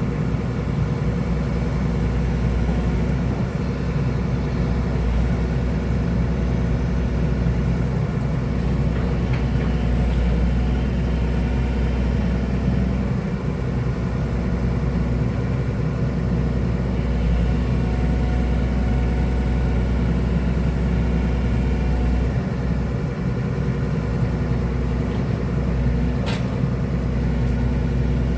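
Excavator diesel engine running steadily at a constant speed, with one short click near the end.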